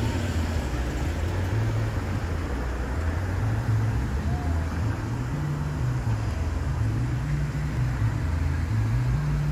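Uneven low rumble, largely wind buffeting the microphone. Beneath it a steam locomotive approaches under steam in the distance, with no clear chuff beat.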